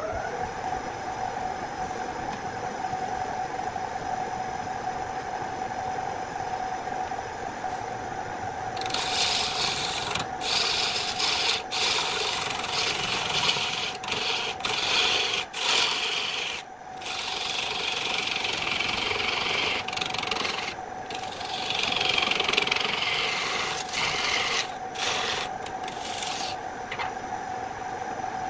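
Belt-driven electric wood lathe running at a steady whine. From about nine seconds in, a hand-held turning tool cuts into the spinning wooden blank, a loud hissing scrape in repeated passes with short breaks, stopping near the end.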